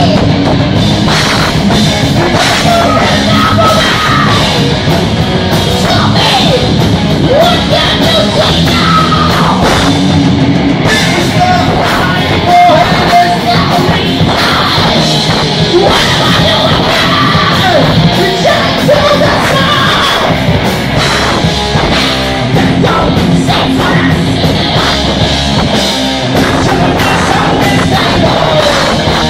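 Heavy metal band playing live and loud: a vocalist singing and shouting over electric guitars, bass and a drum kit.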